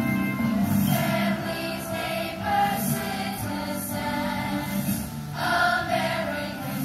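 Middle school chorus of young voices singing together over an instrumental accompaniment.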